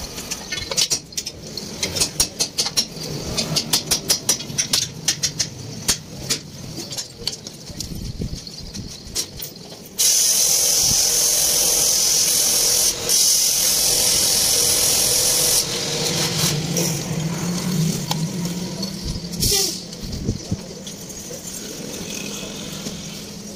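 Steel leaf-spring leaves clicking and clinking in quick succession as they are handled and stacked. Partway through, a loud steady hiss starts abruptly and cuts off suddenly about five seconds later, followed by a low engine hum.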